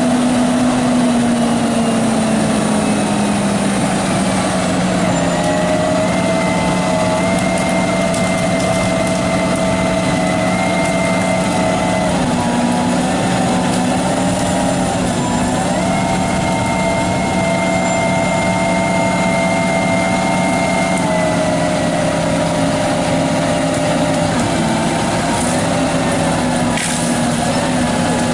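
Engine of tree-work machinery running steadily and loud. Its pitch drops slightly a few seconds in, then shifts up and down in small steps.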